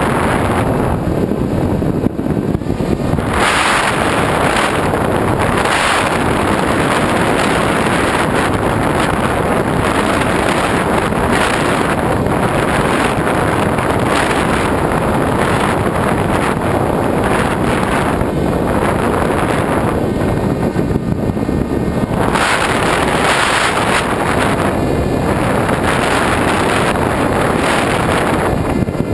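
Rushing wind noise on a camera carried aboard a radio-controlled FPV glider in flight, steady and loud, with the hiss swelling and fading every few seconds.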